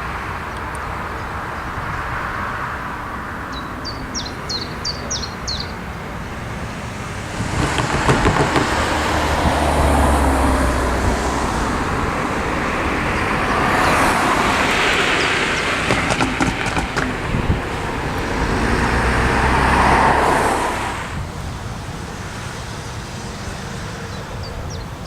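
A few bird chirps, then about seven seconds in a vehicle passes over the railway level crossing: a loud rumbling pass with sharp clattering knocks that swells twice and fades after about fourteen seconds.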